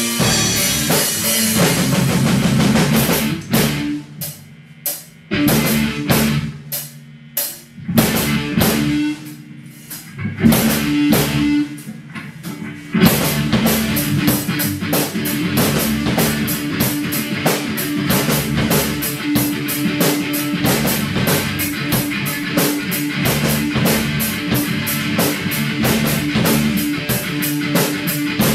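Rock band playing drums, bass and guitar. A stop-start passage of separate drum hits with gaps between them gives way, about 13 seconds in, to the full band playing a steady fast beat.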